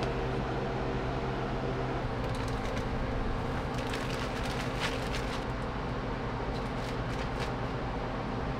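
Steady whir of a room fan. A low hum within it drops away about two seconds in, and a few faint light clicks of kitchen handling come later.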